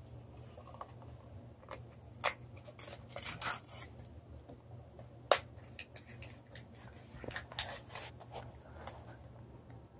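Plastic toy packaging and small plastic toy pieces handled on a tabletop: scattered rustles and clicks, with a sharp click a little past five seconds in as the loudest sound.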